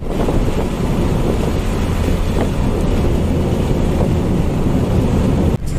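Steady car cabin noise at road speed: low engine and tyre rumble with wind, heard from inside the car. It drops out briefly near the end.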